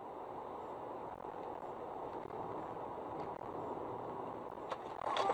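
Steady road noise of a car driving at speed on an expressway, tyre and engine noise heard from inside the cabin through a dashcam, with a few faint clicks near the end.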